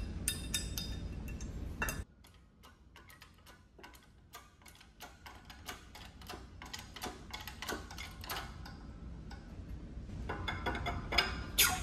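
Irregular metallic clicks and ticks as a hydraulic shop press drives a bearing race into a disc-brake rotor hub, a socket standing in for a race driver. The sound drops much quieter about two seconds in, and the clicks build up again toward the end.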